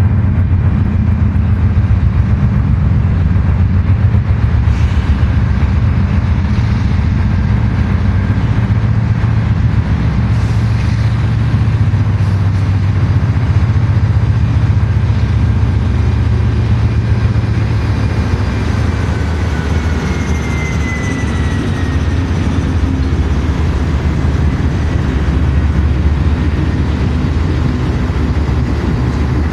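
Norfolk Southern diesel freight locomotives passing close by, their engines running with a loud, steady low drone over the rumble of wheels on rail. A brief high squeal falls in pitch about twenty seconds in.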